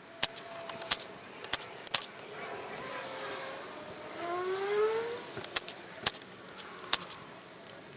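Sharp, irregular metal taps and clinks as a stuck bottom plate is worked free of an LT230 transfer case casing, with a short rising squeak of metal scraping on metal about four to five seconds in.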